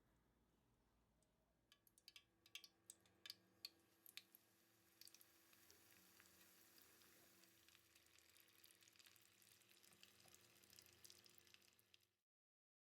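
Samosas frying in hot oil: a scattering of sharp pops and crackles, then a steady faint sizzle with small crackles that stops abruptly near the end.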